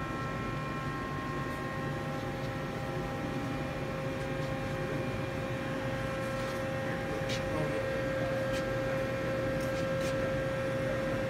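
Steady hum of a powered-up Mazak Quick Turn 10N CNC lathe: a low drone with several steady whining tones over it, and a few faint clicks scattered through.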